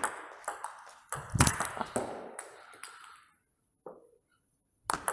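Table tennis rally: a celluloid-type ball clicking off rackets, one faced with Haitian Hippocampus Speed rubber, and bouncing on the table, about two hits a second, ringing in the hall. The hits stop for about two seconds, with one faint tap in the gap, and start again near the end.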